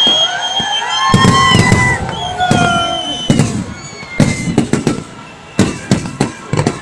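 A fireworks display: shells bursting in quick succession, a dense volley of bangs with several long high whistling tones in the first half, the bangs growing sparser and fainter towards the end.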